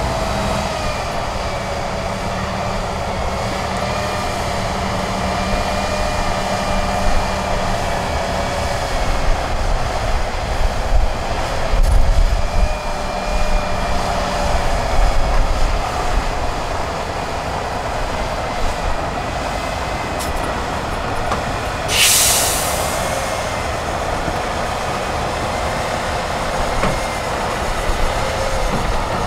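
An 8x8 off-road trial truck's engine working steadily under load as it crawls over rough ground, with a wavering whine from the drivetrain and heavier low rumbling in the middle. About two-thirds through there is a short burst of hiss.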